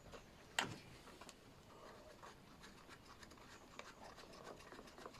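Faint handling sounds of lawnmower carburettor parts being refitted by hand: one sharp click about half a second in, then light scraping and rubbing.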